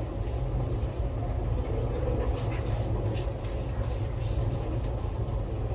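Steady low rumble of a household washing appliance running in the background, with faint light taps scattered over it.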